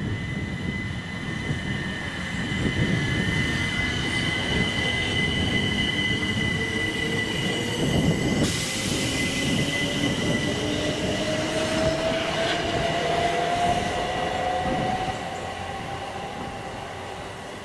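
Southeastern electric multiple-unit train running through, with a steady high-pitched whine throughout. From about halfway a lower motor whine rises steadily in pitch as the train picks up speed, and the sound fades near the end.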